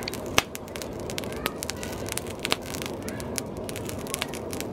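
Charcoal fire in a blacksmith's forge crackling and popping over a steady rushing noise, with one sharp pop about half a second in, as a steel blade heats in the glowing coals.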